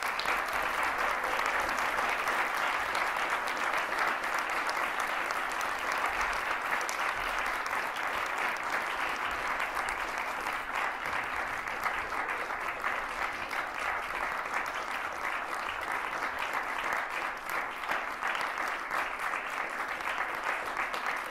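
Audience applause breaking out as the music ends and going on steadily, a dense crackle of many hands clapping.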